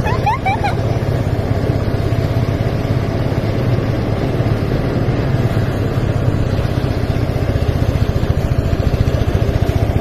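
Engine-driven rice threshing machine running steadily, its small engine giving a fast, even pulse.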